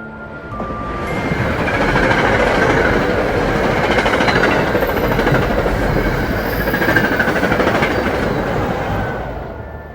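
A loud, dense rumbling rush that swells up over the first couple of seconds, holds, and fades away near the end, with faint high squeals over it.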